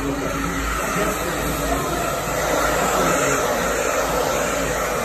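Barbershop background noise: a steady rushing hum with indistinct voices talking underneath.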